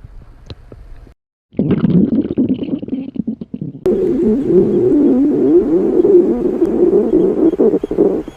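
Stomach growling. Faint at first, it cuts out completely for a moment a little over a second in, then comes back loud, and from about four seconds in it runs on as a steady, wavering rumble.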